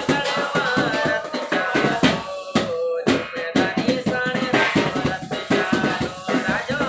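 A man singing a melodic Hindi song over music with a fast, even percussion beat.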